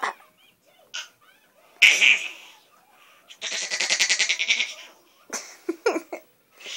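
A baby making high-pitched bleating vocal sounds: a short breathy squeal about two seconds in, then a longer wavering squeal of about a second that pulses rapidly, and a few short sounds near the end.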